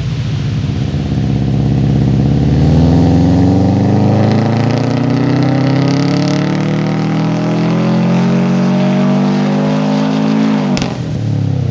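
Subaru STI's turbocharged flat-four engine, on a Stage 2 built shortblock with the stock turbo and flex fuel, pulling hard under full throttle in one long run: its pitch climbs steadily for about nine seconds, then falls away sharply near the end as the throttle is lifted.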